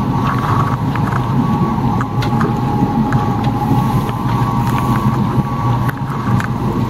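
Boat motor running steadily with a low hum, a few light clicks over it.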